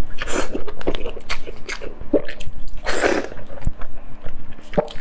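Biting into and chewing chili-glazed grilled ribs: a run of wet, crunchy bites, the loudest about three seconds in.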